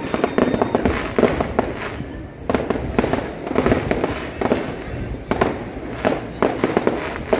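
Fireworks going off in a steady barrage: a run of sharp bangs, about one a second, with crackling between them.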